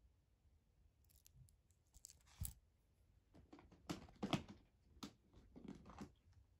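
Faint handling noises of a steel watch and its link bracelet on a cloth mat: a scattered run of light clicks, taps and rustles. The loudest knocks come about four seconds in.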